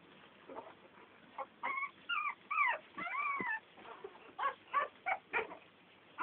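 American Staffordshire Terrier puppies crying in high-pitched whines and squeals. There are a few drawn-out rising-and-falling cries in the first half, then a string of short ones near the end.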